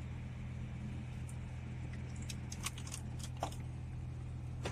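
A few faint clicks and light knocks as hands handle the metal casing of a BMW head unit being pulled out of the dashboard, over a steady low hum.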